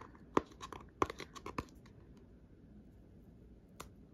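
Fingernails picking and scratching at packaging to get it open: a quick run of small sharp clicks and scratches for the first second and a half, then quiet, with one more click near the end.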